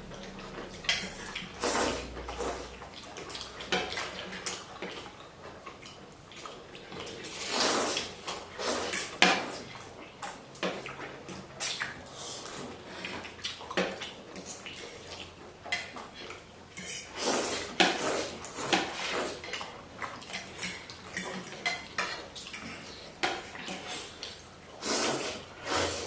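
Eating noodle soup: utensils clinking and scraping against a bowl at irregular moments, with longer noisy slurps now and then.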